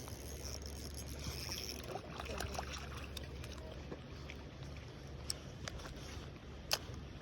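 Water sloshing and splashing in irregular spurts, with scattered sharp clicks, the loudest near the end. Insects chirp in the first couple of seconds.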